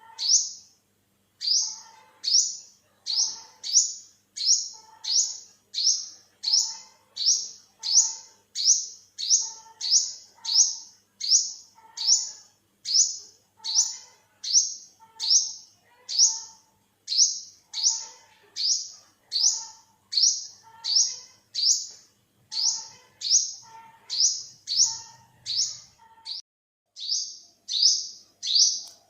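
Olive-backed sunbird calling: a steady series of short, sharp, high notes, each falling quickly in pitch, nearly two a second, with brief pauses near the start and near the end.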